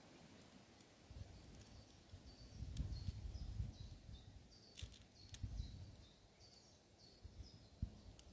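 Wind gusting against the microphone in low rumbles, with a small bird giving a steady run of short, high chirps. A few sharp clicks in between.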